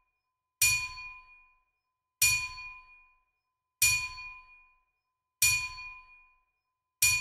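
A bright ringing ding struck five times at an even pace, about every second and a half. Each strike has a dull low thud under it and fades out within about a second.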